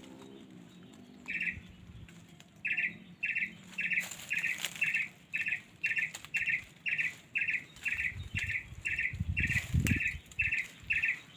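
A bird calling one short note over and over in a steady rhythm, about two calls a second. A few low thuds sound near the end.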